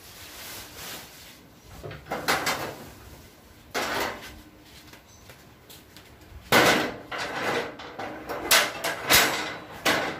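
Sharp clanks and knocks of tools striking a tyre and wheel during tyre work. A few separate knocks come first, then a quicker run of loud strikes, about two a second, from about six seconds in.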